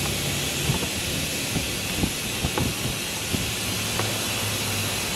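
Suction hose of an oil extractor hissing steadily as it sucks old oil out from around the high pressure oil pump of a 7.3 Powerstroke diesel, with a few faint clicks and taps of the hose against the engine.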